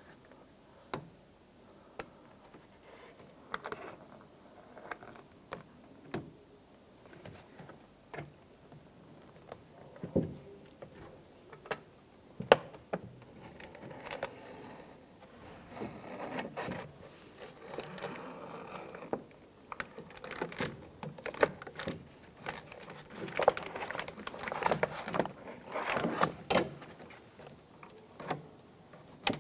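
Plastic door water shield crinkling and rustling as it is cut and peeled away from its sticky adhesive, with scattered light clicks and taps, the sharpest about twelve seconds in.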